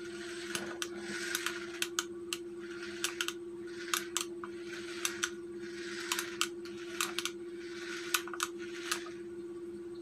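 Small DC motors of a homemade RC car whirring in short bursts, stopping and starting every second or two, with many sharp clicks and a steady hum underneath.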